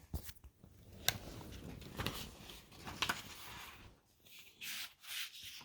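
Paper rustling and a few light clicks, about one a second: a picture book being handled and its pages turned.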